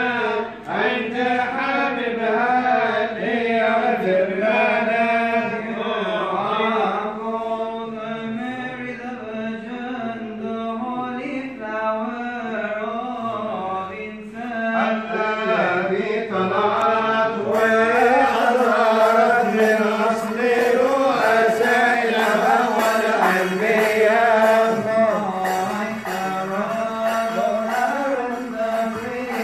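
Men's voices chanting a Coptic church hymn together, the melody moving slowly over a steady low held note.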